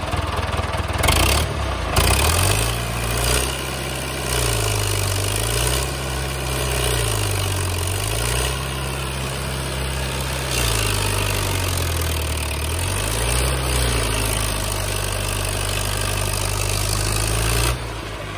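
David Brown 995 tractor's three-cylinder diesel engine working hard, its revs rising and falling several times as it hauls a loaded firewood trailer through deep mud.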